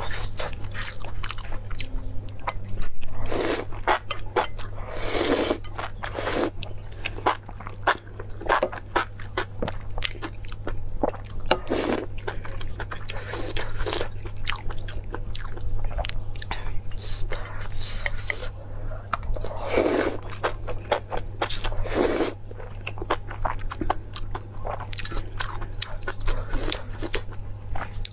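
Close-miked eating of noodles and enoki mushrooms: steady chewing with many small wet clicks and crunches, broken by several longer slurps. A steady low hum runs underneath.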